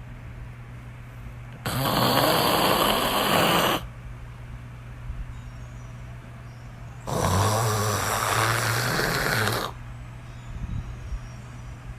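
A person snoring loudly on purpose, a fake snore: two long rasping snores about five seconds apart, each lasting about two seconds.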